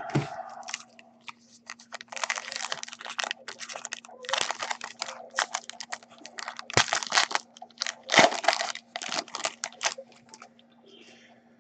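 Trading-card pack wrapper being torn open and crumpled by hand: irregular crinkling and tearing bursts, with a faint steady hum underneath.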